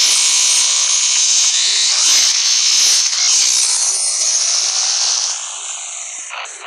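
A dense, distorted 'dark MIDI' version of a Nokia ringtone, so thick with notes that it sounds like a harsh, hissing wall of sound. It drops in level about five seconds in.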